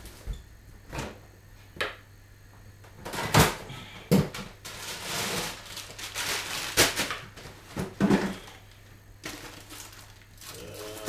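Rummaging in a freezer: a string of knocks and clunks from the freezer drawers and packets, the loudest about three and a half seconds in, with rustling of frozen food bags in between.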